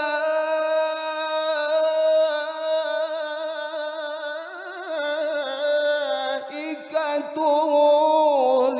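A male qari reciting the Quran in the melodic tilawah style, drawing out one long vowel on a single note. The note wavers in ornamental turns about halfway through and again a little later, then falls in pitch near the end.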